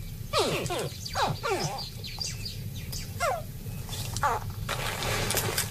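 Nile crocodile hatchlings calling: a series of short, sharp calls, each falling steeply in pitch, about eight in a few seconds. These are the hatching calls that newborn crocodiles give from the nest.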